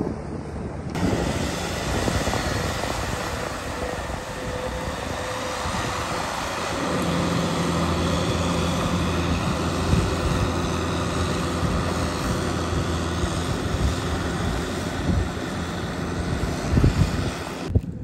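Farm tractor engine running steadily as it tills a flooded rice paddy, under a wash of noise from the mud and water; the engine note shifts about a third of the way in.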